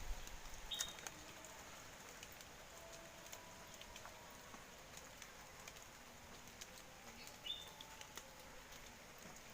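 Faint rain with scattered drips. A short, high bird call sounds twice, about a second in and again late on.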